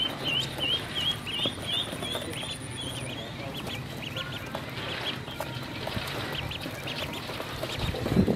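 A brood of ducklings peeping: quick, high peeps, several a second, coming thick at first and then more scattered. A louder low thump comes near the end.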